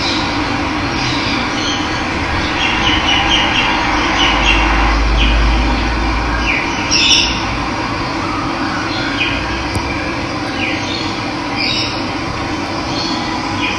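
Running water rushing steadily, with birds chirping and giving short falling calls over it. A low rumble joins in for a couple of seconds near the middle.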